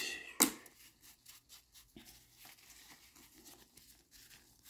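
1990 Bowman baseball cards being handled and flipped through by hand: a sharp snap about half a second in, then soft paper rustling and light clicks as the cards slide over one another.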